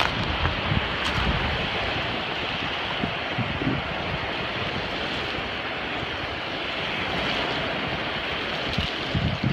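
Steady wash of surf with wind buffeting the microphone in irregular low gusts.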